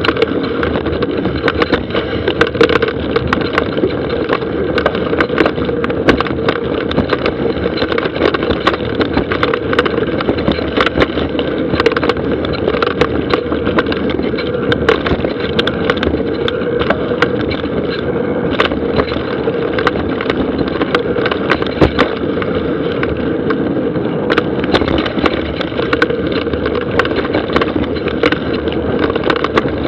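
Mountain bike descending a dry dirt trail, heard from an onboard action camera. A continuous rolling rumble of tyres on dirt is broken by frequent sharp clacks and rattles as the bike goes over rough ground.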